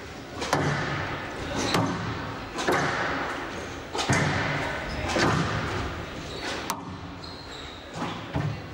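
Squash rally: the ball struck by rackets and smacking off the court walls about once a second, each hit echoing through a large hall.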